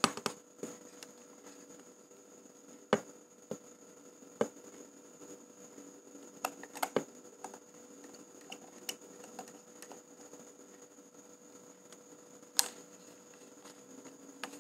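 Irregular light clicks and taps of plastic and metal as a Canon EOS 650D DSLR body and its flip-out LCD screen are handled and worked with a precision screwdriver, over a faint steady hum.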